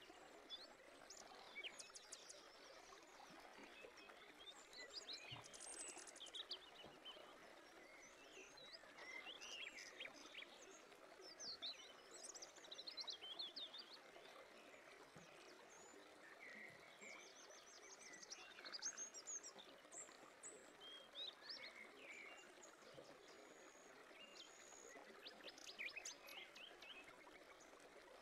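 Faint birdsong: many small birds chirping and giving quick trills over a soft outdoor hiss.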